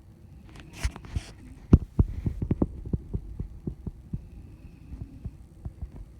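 A person snoring: a rough, noisy breath about half a second in, then a run of low rattling pulses that slows and fades toward the end.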